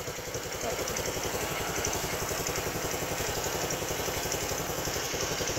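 Honda Click 150 scooter's single-cylinder four-stroke engine idling steadily through an MT8 stainless-tip aftermarket exhaust, with an even, unchanging beat of low exhaust pulses.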